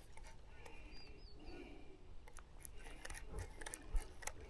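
Faint, irregular mechanical ticking of a baitcasting reel being cranked while a lure is retrieved.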